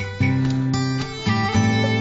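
Background music led by a plucked acoustic guitar, held notes changing every half second or so.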